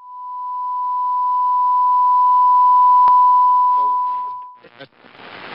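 Test tone with colour bars: one steady, pure, high beep that swells louder over about three seconds, with a click midway, then fades out. Near the end a crackling static noise takes over.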